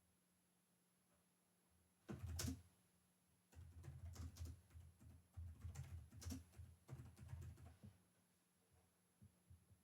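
Computer keyboard being typed on: a short burst of keystrokes about two seconds in, then a quick, steady run of typing for about four seconds, and a few light taps near the end.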